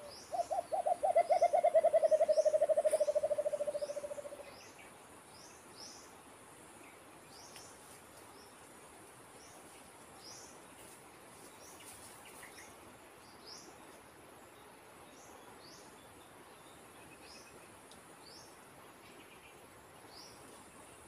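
A dove hooting, the alimukon that is being trapped here: a quick run of soft hoots that falls slightly in pitch, speeds up and fades out over about four seconds. After it only faint high chirps or ticks and a steady high insect hiss remain.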